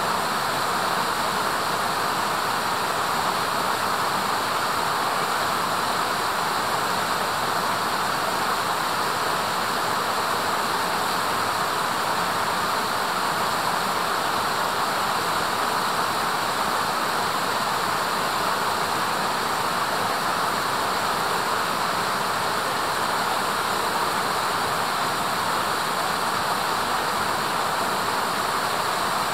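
Steady rushing of a mountain stream, an even hiss of water that does not change.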